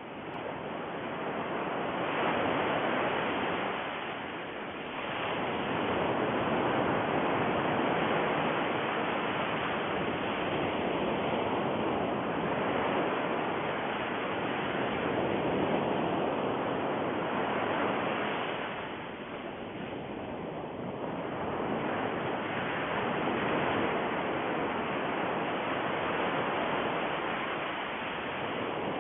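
A steady rushing noise, like surf, that swells and eases, dipping briefly twice.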